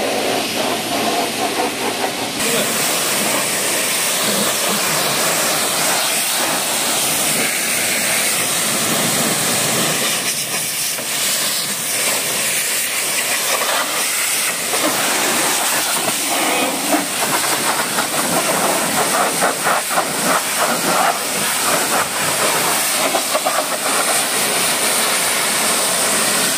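Pressure-washer jet spraying water onto a car's body and windows, rinsing off the foam: a loud, steady hiss.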